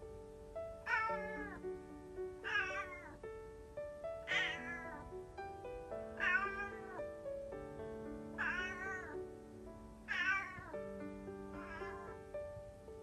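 Calico cat meowing over and over, seven drawn-out meows that fall in pitch, one every second and a half to two seconds: a former stray crying to be let outside. Gentle background music plays underneath.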